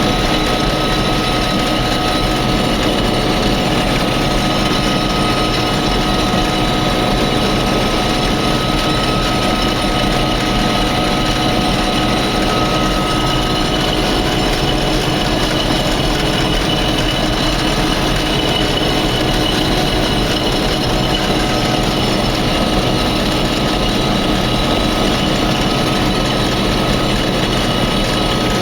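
Combine harvester running steadily while combining wheat: a continuous machine drone with several steady whining tones from its drives.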